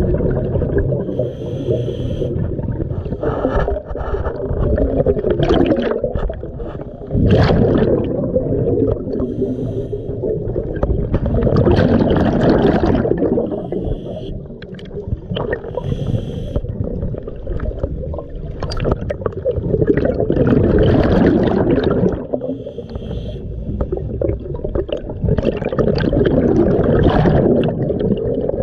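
Scuba divers' breathing heard underwater: regulator breaths and rumbling, gurgling bursts of exhaled bubbles that swell every few seconds.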